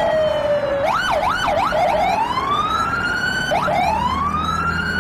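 Police car siren: a few quick up-and-down yelps about a second in, then two slow rising wails, over a low rumble of traffic.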